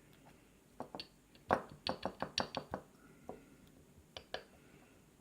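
Small sharp metal clicks and clinks, about a dozen spread over a few seconds, from pins and tools being handled as the pin stacks are taken out of a five-pin key-in-knob lock cylinder.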